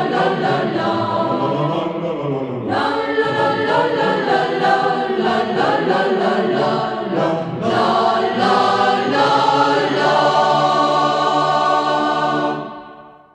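Choir singing a melody, settling into a long held chord near the end that fades out.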